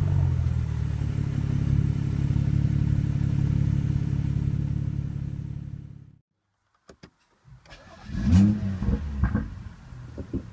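BMW X4 M40i's 3.0-litre turbocharged straight-six idling steadily through its stock exhaust in Sport+ mode, fading out about six seconds in. After a short silence and a couple of clicks, the engine starts again about eight seconds in, with a quick flare in revs before it settles back to idle.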